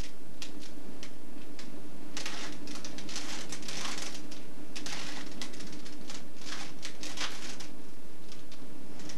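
Rubik's cube being turned by hand: rapid runs of plastic clicks and rattles as the layers turn, in bursts with short pauses between them, over a steady low hum.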